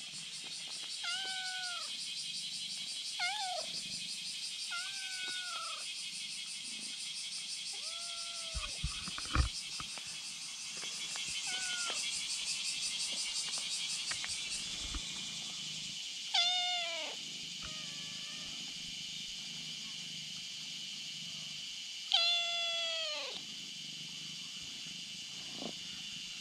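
Cat meowing over and over: short meows that fall in pitch, every couple of seconds, then two louder, longer meows later on.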